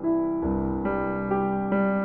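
Slow instrumental background music on piano, sustained notes with a new one struck about every half second.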